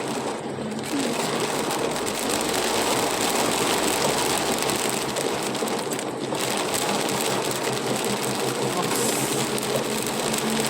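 A car driving in heavy rain, heard from inside the cabin: a steady hiss of rain on the body and tyres on the wet road, over a low engine hum.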